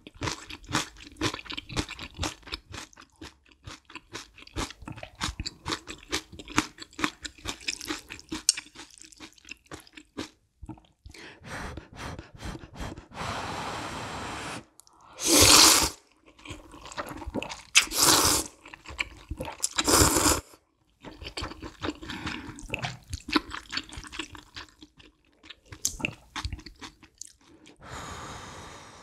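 Close-miked eating of spicy kalguksu ramyun noodles: chewing with crisp crunching and wet mouth clicks, then three loud noodle slurps in quick succession about halfway through. The chewing resumes, and there is another slurp near the end.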